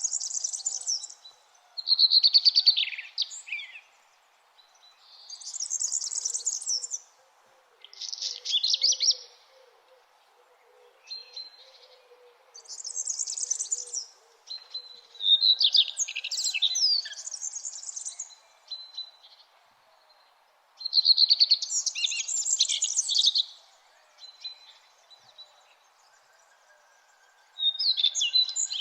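Songbirds singing at dawn: high-pitched, twittering song phrases of a second or two, repeated about every three seconds with short pauses between, over a faint steady background hum.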